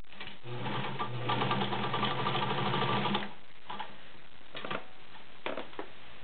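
All-metal White Model 764 sewing machine stitching through seven layers of denim. It runs steadily for about three seconds and then stops, followed by a few short clicks.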